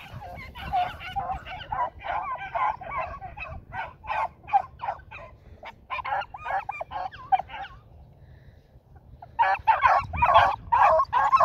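A pack of beagles baying as they run a rabbit's scent trail: many short, overlapping bawls, a brief lull past the middle, then louder baying near the end.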